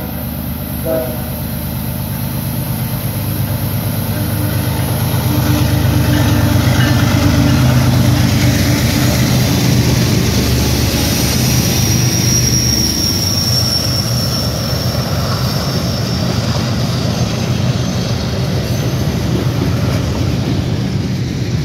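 BNSF freight train's diesel locomotives approaching and passing close by, the engine drone building to its loudest as they go past. Then the tank cars and boxcars roll by with steady wheel-on-rail noise, and a thin high squeal from the wheels on the curve comes in briefly around the middle.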